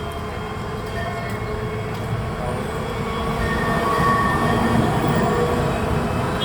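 A tram running on its rails with a steady low rumble that grows louder toward the middle. Thin, high wheel squeals come and go over it.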